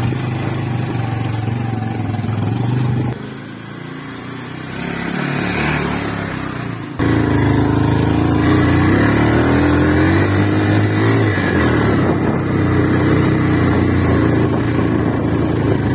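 Motorcycle engine running while riding, with road and wind noise. The sound drops off about three seconds in, then cuts abruptly back in louder about seven seconds in, with a steady engine tone.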